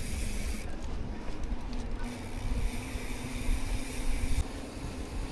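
Wind on the microphone and tyre rumble from a mountain bike rolling along, with a faint steady hum underneath.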